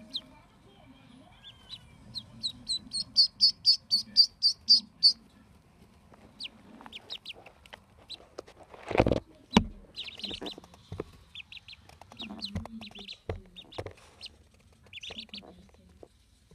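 Day-old Call ducklings peeping: a quick run of about ten loud, high peeps, roughly four a second, a few seconds in, then scattered softer peeps. A brief rustle about nine seconds in.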